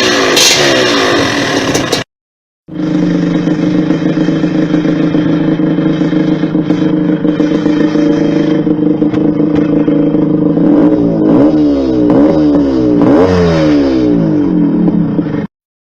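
Yamaha DT 125's single-cylinder two-stroke engine being revved, then, after a short break, idling steadily, with several quick throttle blips that rise and fall near the end.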